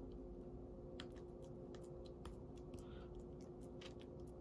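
Metal spoon working raw ground turkey on parchment paper: faint, scattered light clicks and scrapes over a steady low hum.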